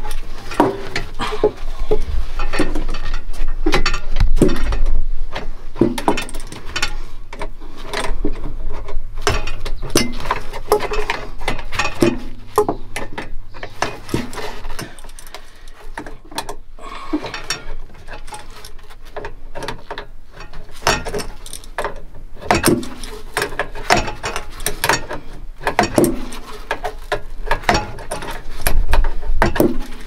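Hand tools clicking and clanking irregularly against metal fittings as the refrigerant line couplings are tightened.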